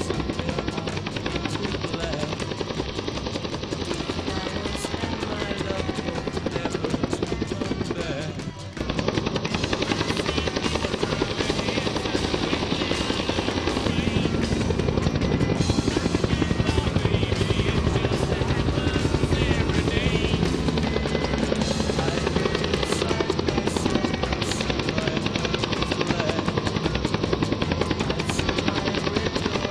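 UH-1H Huey helicopter's two-blade main rotor beating in a fast, steady chop, with music mixed underneath. The sound dips briefly about nine seconds in, then comes back fuller.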